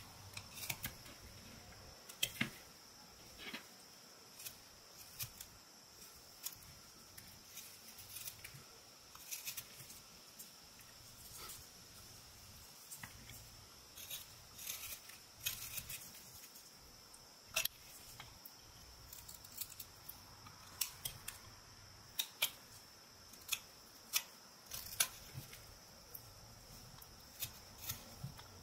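Whittling knife, made from a boning knife, slicing shavings from an eastern white pine carving: short crisp cuts at irregular intervals, sometimes several in quick succession.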